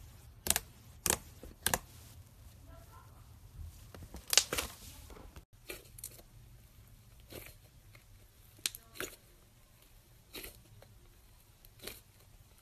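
Thick white slime being poked and squeezed by hand, giving sharp clicks and pops as trapped air bursts. There are three evenly spaced pops near the start and a quick cluster around four seconds in, then after a short break single pops every second or so.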